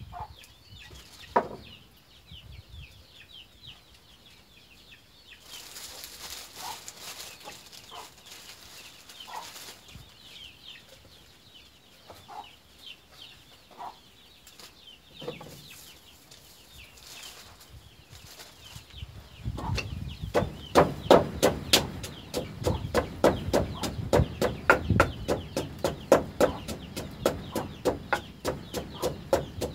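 A wooden pestle pounding chilies in a clay mortar, starting about two-thirds of the way through as rapid, regular thuds at about three a second. Before that there are scattered clucks of chickens and a single sharp knock near the start.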